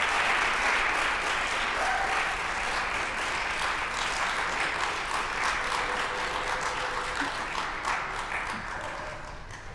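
Audience applauding, a dense patter of many hands clapping that thins and fades out over the last two seconds or so.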